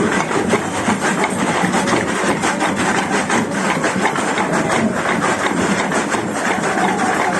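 Loud din of a street procession: a crowd with rapid, dense percussive hits over a steady noisy bed.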